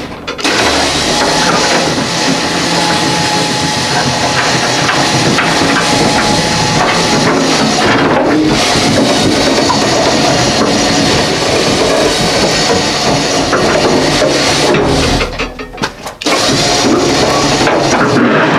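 KR Wilson flathead V8 power unit on steel casters being moved up an aluminum diamond-plate dock ramp onto a trailer: loud, continuous rumbling and rattling of the casters on the plate, with a brief pause about fifteen seconds in.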